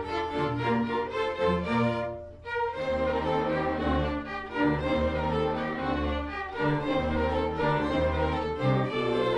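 A school string orchestra playing a holiday piece, violins and cellos bowing sustained notes, with a brief pause about two seconds in before the full ensemble comes back in.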